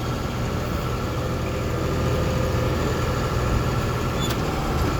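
Tractor engine running steadily at about 1650 rpm, driving a belt-type round baler through the PTO while picking up hay.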